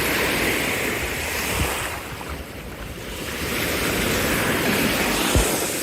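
Surf washing onto the beach, with wind buffeting the microphone; the wash eases off briefly about halfway, then builds again.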